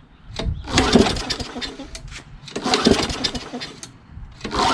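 Tecumseh flathead mower engine being cranked by hand on its pull rope for a compression test. It turns over without firing in two long pulls, and a third begins near the end. The engine has low compression (55 on the gauge), so it will not start.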